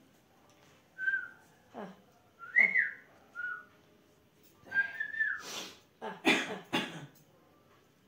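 Pet green parakeet whistling in short notes, some flat and some rising then falling, then a few louder, harsher calls about five to seven seconds in.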